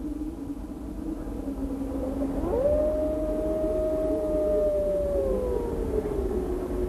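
Arctic wolf howling: a low held note, then about two and a half seconds in a long call that glides up, holds, and slowly falls away, over a steady low rumble.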